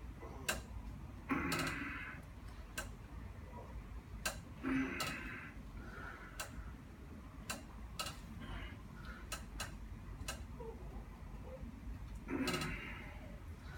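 Faint, irregularly spaced small clicks, with three short soft hissing rustles, about a second and a half in, around five seconds and near the end.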